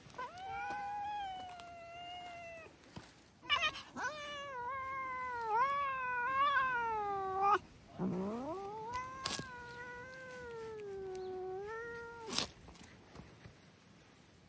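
An agitated cat yowling: three long, drawn-out yowls, the middle one about four seconds long with its pitch wavering up and down, the last starting low and rising. A few brief sharp clicks fall between the yowls.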